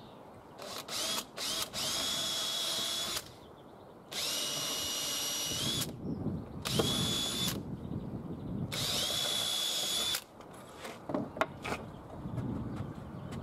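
Cordless drill boring a row of holes through a softwood plank. A couple of short trigger blips are followed by four separate runs, each a whine that rises quickly and then holds steady until it stops. A few light knocks near the end.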